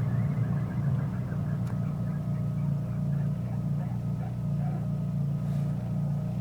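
Citroën Saxo VTS 1.6-litre 16-valve engine idling steadily, with a faint, fast repeating chirp over its running; the owner takes the chirping as a sign that something is broken.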